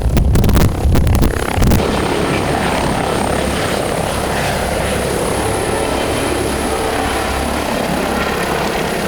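Helicopter rotor and turbine running steadily, with loud low buffeting on the microphone in the first two seconds.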